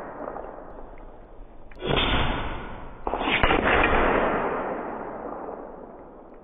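Two shots from a Hatsan Factor RC Sniper Long PCP air rifle, about a second apart, each a sudden report that fades away over a second or so.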